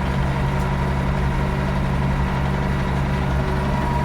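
Ford 9700 tractor's six-cylinder diesel engine running steadily while travelling on the road, a constant low hum.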